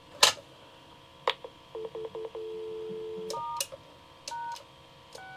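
Payphone line heard through an amplifier speaker: two clicks about a second apart, then dial tone that breaks up briefly before coming on steady. About halfway through, the dial tone stops as the star key's touch-tone sounds, followed by the pound key and, at the very end, the 6 key. This is the star-pound-six code that asks the Protel phone for the date and time of its last download.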